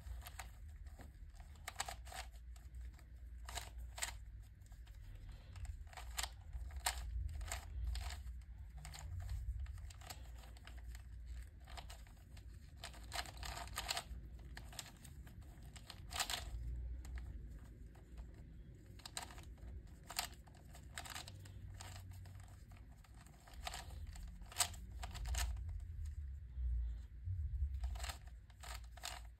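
Plastic layers of a 3x3x3 Fisher cube clicking and clacking as they are turned by hand, in irregular runs of quick turns broken by short pauses, over a low rumble.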